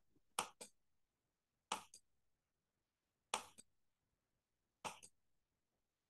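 Near silence broken by four short, faint clicks, each a quick double tick, about a second and a half apart.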